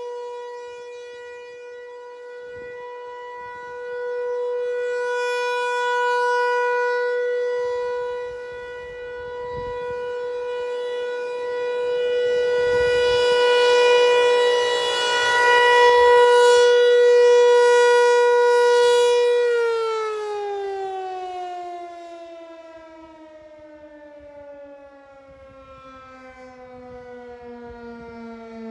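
American Signal Corporation Tempest T-135AC/DC electromechanical siren sounding its steady Alert tone, swelling and fading in loudness as the rotating horn sweeps around. About two-thirds of the way through, the tone ends and the siren winds down, its pitch falling steadily.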